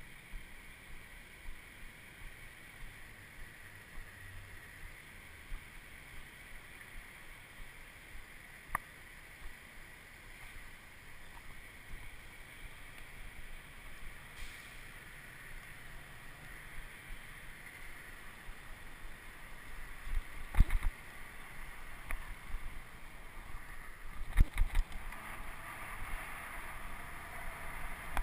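Riding noise from a camera mounted on a moving bicycle: steady wind rush over the microphone and tyre noise on the road. The bike and camera mount rattle and knock sharply over rough pavement, loudest about two-thirds of the way through and again near the end.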